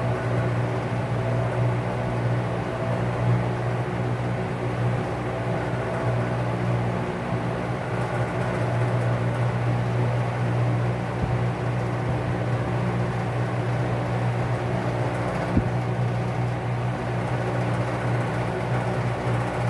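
Vintage Lakewood P-58 box fan motor turning a 20-inch LAU propeller: a steady electric hum with the rush of air from the blades, and one short click about fifteen seconds in.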